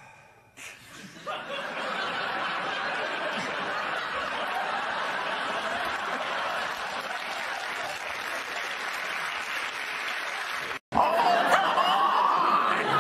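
A studio audience laughing steadily for about ten seconds. After a sudden cut, a man's loud, drawn-out shout rises in pitch.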